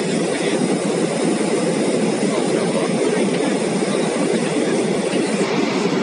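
A passenger jet's wing-mounted turbofan engine running, heard from inside the cabin as a steady, loud rushing rumble of engine and airflow noise.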